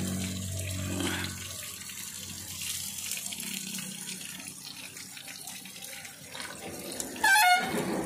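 Water gushing steadily from the spout of a free-flowing tube well handpump, splashing into a concrete basin, the well flowing on its own without any pump or electricity. Near the end, a brief loud high sound falls in pitch.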